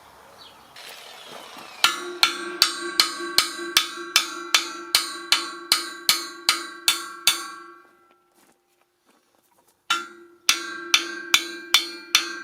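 Hammer blows on the steel of a damaged deep ripper, each one ringing. About fifteen steady strikes, a pause of about two seconds, then another run of strikes near the end. The hammering is not moving the bent part.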